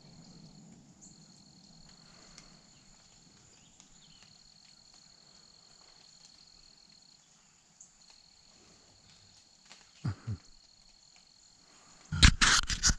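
Insects trilling steadily at a constant high pitch. Two low thumps come about ten seconds in, and a burst of loud knocking and rustling starts near the end.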